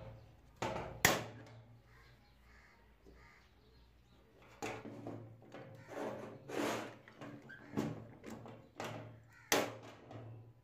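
Hand pop-rivet gun being squeezed repeatedly while setting a rivet in a hacksaw frame: metal clicks and sharp snaps, the loudest about a second in and near the end, with rasping creaks from the tool's handles between them.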